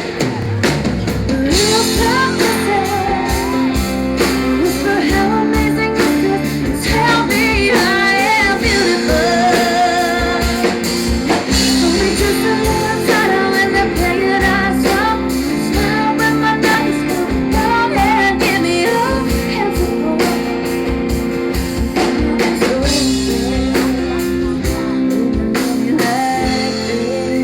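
Live country band music: a singing voice over guitar and drum kit.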